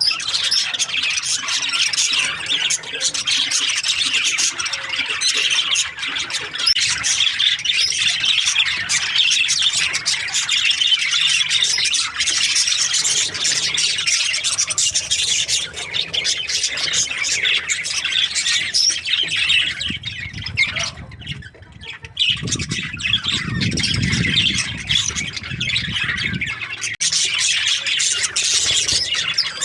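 A flock of budgies chattering and squawking continuously, a dense high warbling that thins briefly about two-thirds of the way through. A low hum sounds under it for a few seconds after that.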